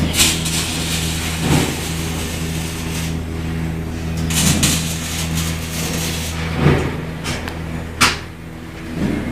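Steady electrical hum and cooling-fan drone of a 350LC CO2 MIG welding inverter switched on but idle, not welding. A few brief knocks or rubs break in at intervals.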